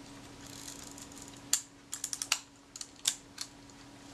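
A quick run of small, sharp mechanical clicks, starting about a second and a half in, from a Kodak Retina IIIc's film advance and leaf shutter being worked to cock and fire the shutter. The shutter does not quite cock: the curved rack still needs one more tooth.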